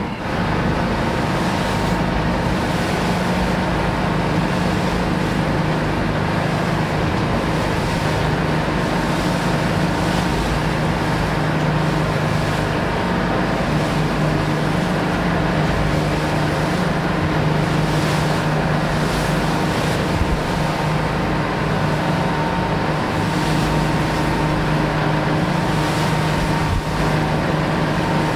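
Tour boat's engine running steadily under way: a constant low hum with an even rush of wind and water over it.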